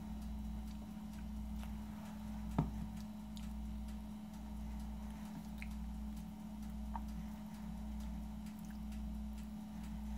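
Low steady background hum that throbs about once a second, with a few faint ticks and one sharper click about two and a half seconds in.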